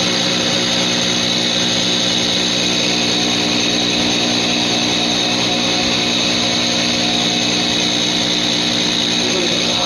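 Diesel injection pump test bench running, its drive motor turning a truck's diesel injection pump during a fuel-delivery test: a steady hum and whine.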